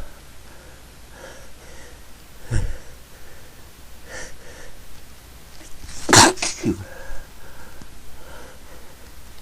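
A person sneezing: a smaller burst about two and a half seconds in, then one loud sneeze about six seconds in with a short second burst right after it, amid faint breathing.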